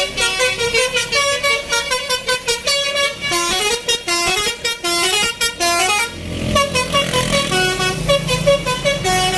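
Basuri 'telolet' multi-tone bus horn playing a quick run of stepped musical notes, with rising swoops in the middle. From about six seconds in, a low rumble rises beneath the horn notes.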